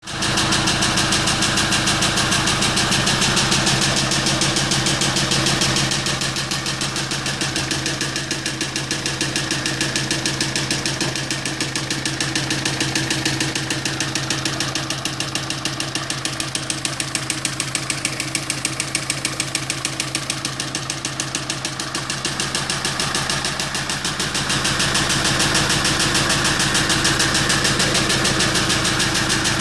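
Kia Sorento engine idling with a rapid, steady knock, the knocking noise being investigated.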